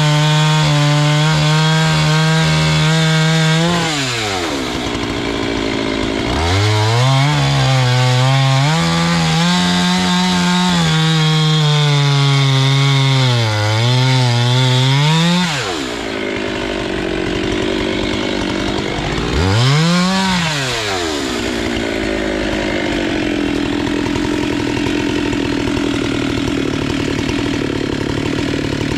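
Husqvarna 390XP two-stroke chainsaw with a 3-foot bar running at high revs while cutting a large willow trunk. Its pitch drops and recovers again and again as the bar loads up in the cut. About halfway through it comes off throttle, revs once briefly, and then runs at a lower, steadier sound.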